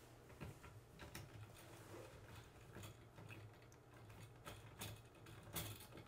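Faint small plastic clicks and rustles as twist-on wire nuts are screwed onto bundled electrical wires in an outlet box by a gloved hand, over a faint low hum.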